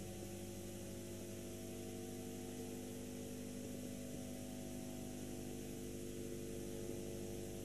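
Steady electrical mains hum with a stack of even overtones, over a faint hiss.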